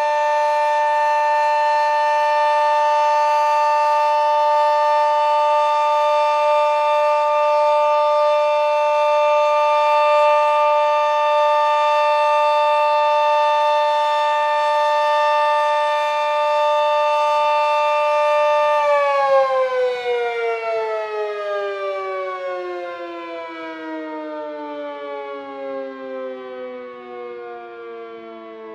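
Sentry 40V2T omnidirectional dual-tone outdoor warning siren sounding its steady full-alert chord, very loud. About two-thirds of the way through the chord stops holding and the siren winds down, its two notes falling slowly together and fading as the rotors coast at the end of the test.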